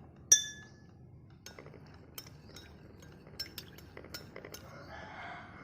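A spoon stirring a drink in a glass, clinking against its sides: one sharp, ringing clink just after the start, then a run of lighter, irregular clinks.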